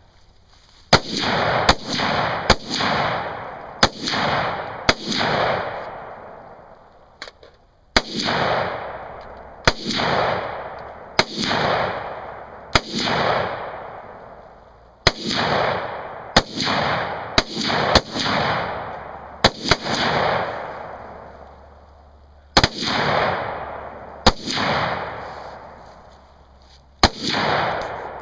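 Gunfire from an AR-15 carbine and, by the end, a Glock 19 pistol: about two dozen shots in quick strings of two to four, with pauses between the strings. Each shot trails a long echo.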